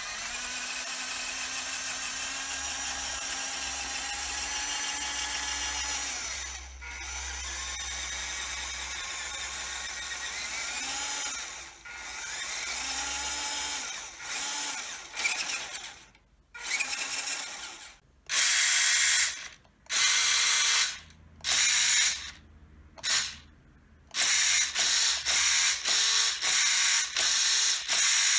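WPL B-24 RC truck's small electric drive motor and gearbox whirring as the wheels spin freely in the air. It runs steadily for about six seconds, then in shorter throttle runs that rise and fall in pitch, and from about halfway through in quick on-off bursts that come faster near the end.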